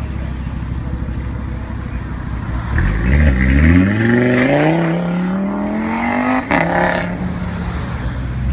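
A car engine running steadily, then about three seconds in it revs up in one long rising pull. Near the end the revs drop abruptly and it settles back to a lower steady note.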